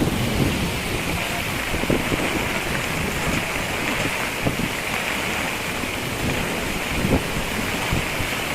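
Strong storm wind gusting and buffeting the microphone, with a steady hiss of rain throughout.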